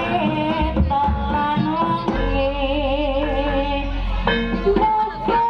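Javanese jaranan accompaniment music playing: a melody that wavers in pitch, held over a steady low bass.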